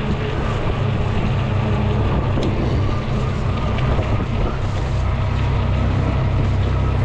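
Steady low rumble of wind on the microphone mixed with road noise from a fat-tire e-bike being ridden.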